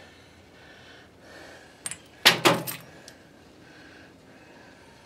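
Metal carburetor parts clinking as the float bowl is handled and taken off: a couple of light clicks about two seconds in, then a louder metallic jangle lasting about half a second.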